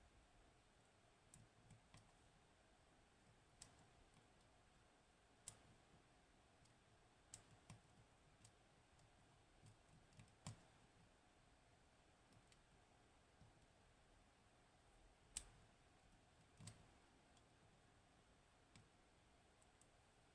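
Faint, sporadic clicks of a lock pick working the pins of a Hori Trident, a high-pin-count lock with T-spool drivers. About a dozen separate clicks come at uneven gaps, a few of them sharper than the rest.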